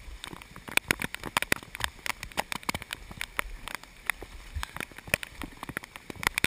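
Dense, irregular crackling splashes of fast, muddy flash-flood water churned up by a hiker wading through it.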